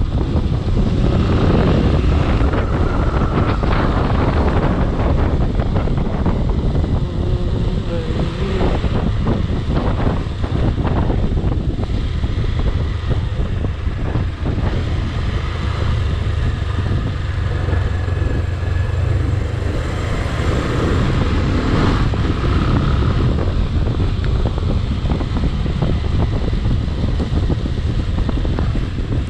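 Vehicle engine running steadily on the move, with wind buffeting the action camera's microphone.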